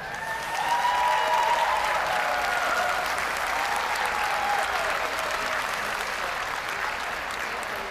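Large arena audience applauding, with some cheering voices over the clapping; it swells about a second in and slowly tapers off.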